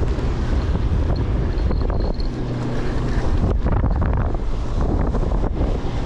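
Wind buffeting the microphone in a loud, steady low rumble, with a few light knocks.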